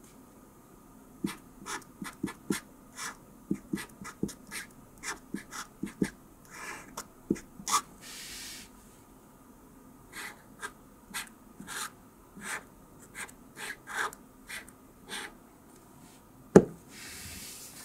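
Felt-tip marker writing on a kraft paper envelope: many short scratchy pen strokes, one per stroke of the characters, with pauses between them. A single sharp click near the end is the loudest sound, and a couple of soft breaths fall between the strokes.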